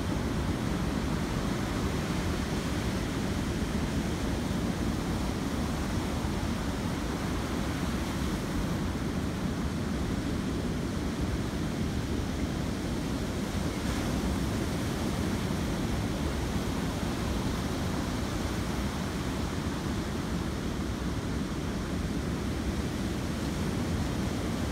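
Ocean surf breaking and washing in over the sand and around a rock jetty: a steady, even rush of waves with no single crash standing out.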